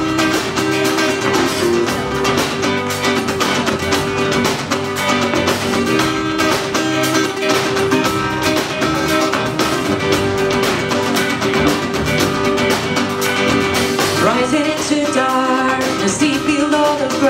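Live band playing an instrumental passage of a pop song: strummed acoustic guitar over a drum kit keeping a steady beat, with a second guitar.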